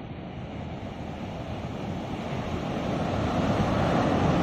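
Ocean surf breaking and washing up over a sandy beach, with wind buffeting the microphone; the wash grows steadily louder.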